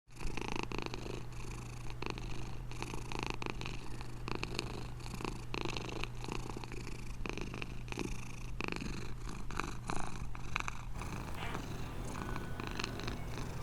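Domestic cat purring steadily, over a low steady hum; the recording changes about eleven seconds in, where a new stretch of purring begins.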